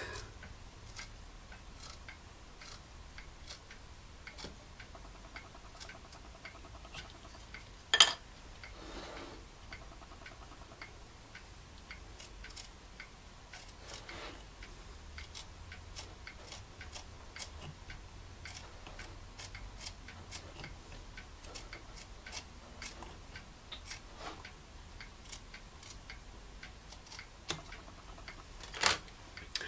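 Faint, repeated small clicks, about two a second, as a craft knife cuts around a latex rubber ball. A single sharper click comes about eight seconds in.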